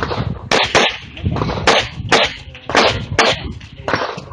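A handgun fired in a string of about seven shots, roughly two a second, some in quick pairs, each with a short echo.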